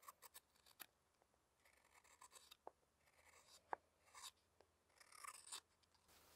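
Hook knife scooping out the bowl of a green-wood spoon: a series of short, faint scraping cuts with a few sharp ticks, stopping near the end.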